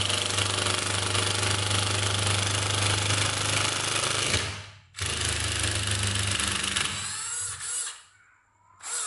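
National 12 V cordless impact driver running a screw into a block, its hammer mechanism rattling steadily. It stops briefly about four and a half seconds in, runs again, then fades and cuts out for a moment near the end before starting up again.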